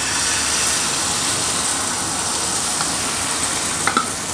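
Runny egg-and-flour paratha batter sizzling steadily as it is poured onto a hot, oiled non-stick pan, with a light tap near the end.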